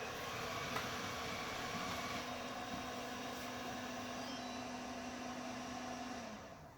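Samsung Powerbot robot vacuum running with a steady hum, then winding down and stopping about six seconds in.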